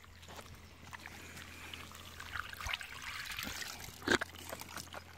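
Water trickling out of the open end of a black polyethylene pipe onto the dirt, with a sharp knock about four seconds in.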